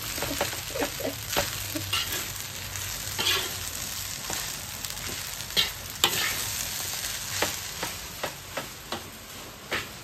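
Fried rice sizzling in a wok while a spatula stirs and turns it, scraping and knocking against the pan many times.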